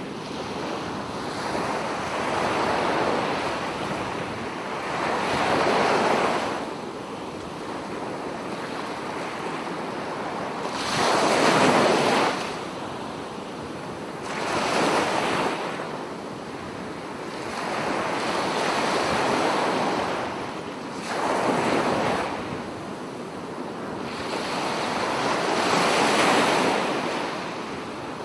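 Ocean waves washing in and rolling back: a hiss of surf that swells and fades every three to four seconds, with the loudest surge about halfway through.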